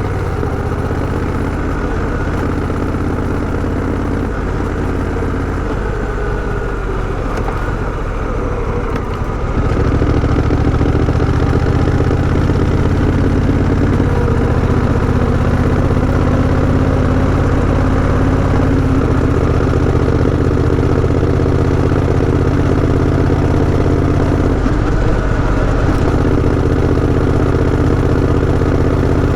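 Honda Rebel 1100 DCT's parallel-twin engine running steadily, growing louder about ten seconds in and holding there.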